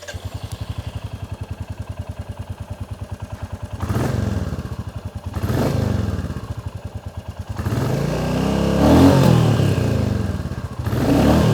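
2021 Royal Enfield Classic 350's 349 cc single-cylinder engine idling with an even, pulsing thump, then revved in several throttle blips from about four seconds in, the longest in the middle and another near the end.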